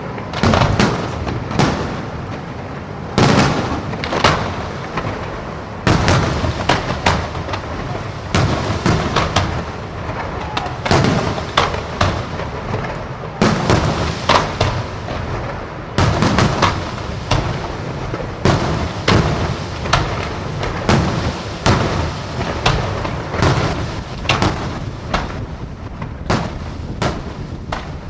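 Aerial fireworks display: a continuous barrage of shell bursts and bangs, several a second, over steady crackling.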